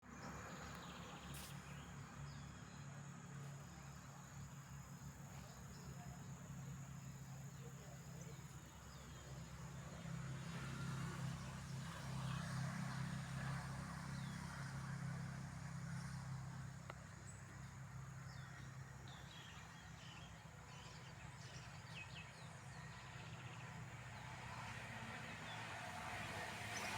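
Quiet outdoor ambience: a steady low rumble like distant traffic, a thin high steady hum like insects, and a few faint short bird chirps.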